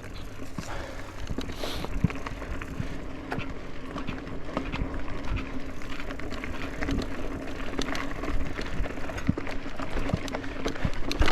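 Mountain bike rolling over a rough dirt trail: tyre rumble with frequent clicks and knocks as the bike rattles over the ground, and a steady low hum underneath.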